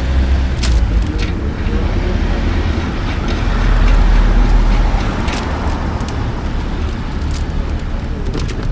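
Street traffic rumbling low and steady, swelling as a vehicle passes about three to five seconds in, with a few sharp clicks over it.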